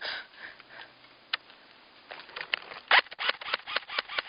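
Airsoft electric gun firing: a single shot about a second in, then a quick string of sharp clicking shots from about two seconds on, several a second. The gun's battery is running low.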